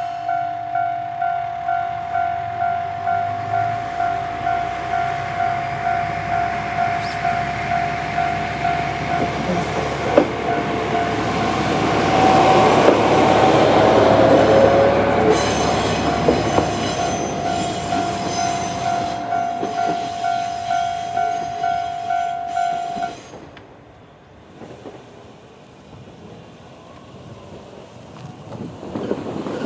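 A Japanese level crossing's electronic warning bell rings in a steady repeating ding, about one and a half strikes a second. An Isumi Railway Isumi 350 diesel railcar runs through the crossing, loudest about twelve to fifteen seconds in, with wheels clattering over the rail joints. The bell cuts off suddenly about 23 seconds in, leaving much quieter background.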